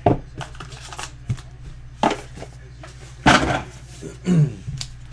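Cardboard trading-card hobby box being opened by hand: a run of short scrapes and knocks as the box is pulled apart and its pieces are set down on the table, the loudest about three seconds in.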